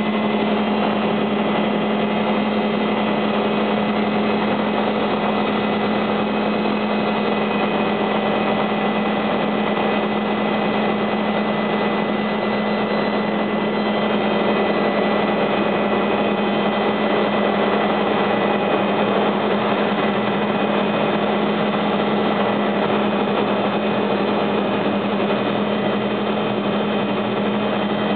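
Helicopter's turbine engine and rotor running steadily while landed, a constant whine with a strong low hum.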